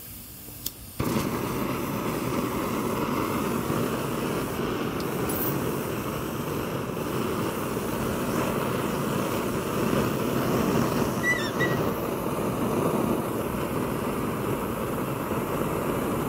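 Kerosene pressure stove burner roaring steadily. The roar starts abruptly about a second in, after a quieter moment with a click.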